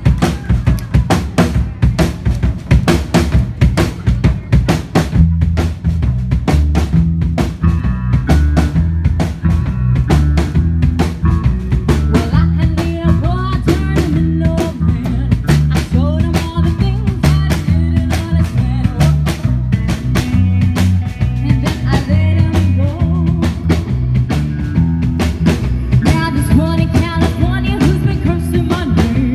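Live rock band playing loudly: a drum kit keeping a steady beat with bass guitar and electric guitar, and a voice singing over it from about halfway through.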